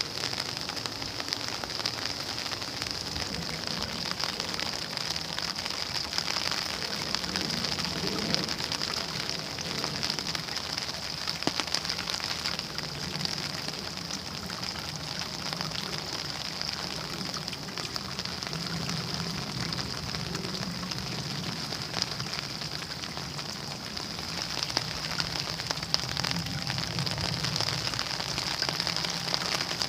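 Rain falling steadily: an even hiss of rain with many small drops ticking on a surface.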